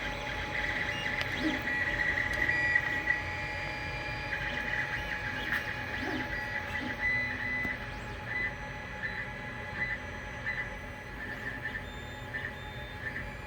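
Ender 5 Plus 3D printer's stepper motors singing, driven by its 8-bit motherboard: whining tones near 2 kHz change pitch as the print head moves, breaking into short beep-like notes in the second half. Underneath is a steady hum from the printer's cooling fans.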